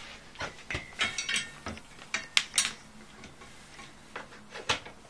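Scattered clicks, knocks and light rattles of a plastic upright vacuum cleaner being handled and set up, none of them steady.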